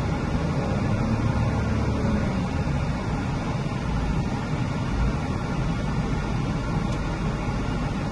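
Volvo XC60's 3.2-litre B6324S4 straight-six petrol engine running steadily, heard from inside the cabin.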